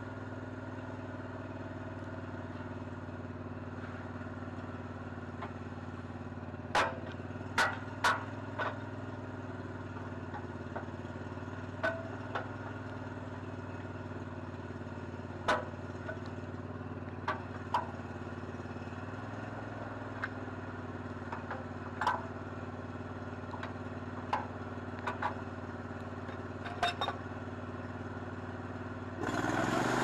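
A sawmill's engine idling steadily, with about a dozen sharp wooden and metal knocks as the log is levered into place on the mill bed with a cant hook. Near the end the engine speeds up.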